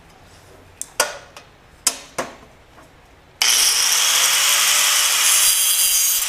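A few knocks of metal being handled and set in place, then about three and a half seconds in an angle grinder starts cutting through a metal bracket piece with a loud steady grinding that carries on to the end.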